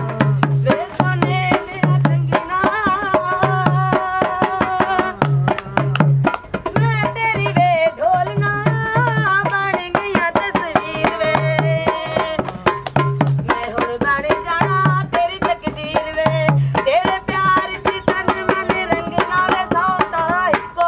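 Music with a hand drum beating a quick rhythm of sharp hits and deep strokes, under a wavering, ornamented melody.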